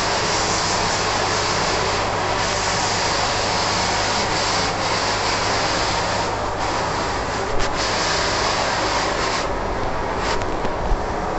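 WashTec SoftCare 2 Pro rollover car wash at work: rotating brushes scrubbing over the car body with water spraying, over a steady machine hum. The high hiss of the spray drops away about nine and a half seconds in.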